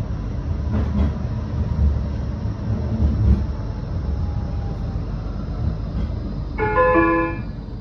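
Tram running on the rails, a steady low rumble heard from inside the car. Near the end a short multi-tone electronic chime sounds, of the kind that comes before the on-board stop announcement.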